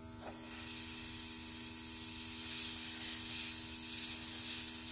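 Airbrush gun hissing steadily as it sprays makeup, driven by a Luminess air compressor, with a steady low hum beneath. The hiss starts just after the opening and swells and eases a little.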